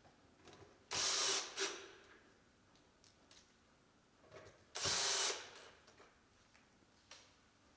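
A handheld power tool runs in two short bursts about four seconds apart, with light clicks and knocks of handling between them.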